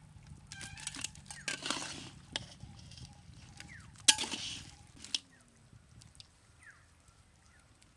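Metal ladle scraping and clinking against a large iron kadai while stirring and lifting crab curry, in two short scraping bursts with scattered clicks and a sharp knock about four seconds in.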